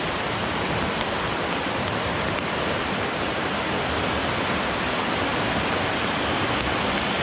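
Mountain creek rushing over rocks and small cascades: a steady, even rush of water.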